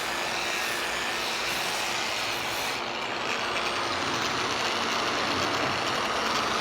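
A power tool running steadily while working wood, a continuous mechanical noise that changes slightly about three seconds in.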